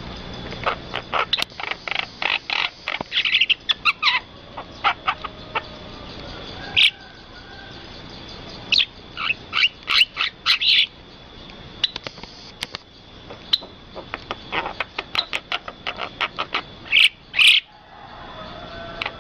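Birds chirping and calling in quick runs of short, sharp notes, with brief pauses between runs, over a thin steady high tone.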